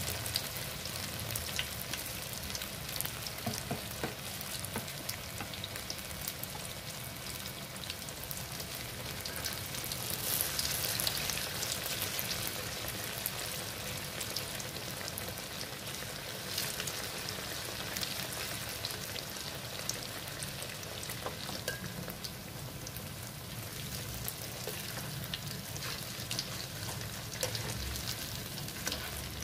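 Vegetable fritters (bakwan) frying in hot oil in an aluminium wok: a steady sizzle with fine crackles from the bubbling batter, a little louder about ten seconds in.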